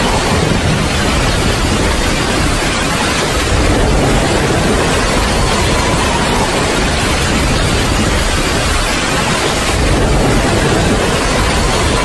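Steady heavy rain: a dense, even hiss with a low rumble underneath.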